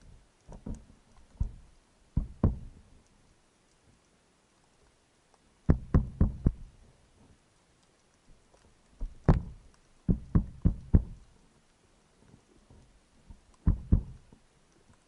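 Butt of a speargun, fitted with a piece of seashell, knocked against the rock underwater in short clusters of sharp taps. This is a spearfisher's call to draw in mullet and sea bream.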